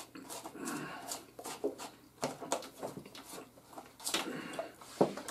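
Crunching and chewing of hard, dry oven-baked pizza rolls, with scattered clicks and knocks of hands, plates and a soda can on a wooden table.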